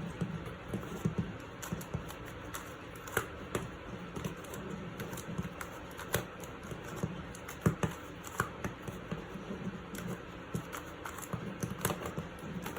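Plastic clicks and clacks of a QiYi X-Man Wingy magnetic skewb being turned by hand, pieces snapping through irregular turns, still unlubricated and sandy out of the box.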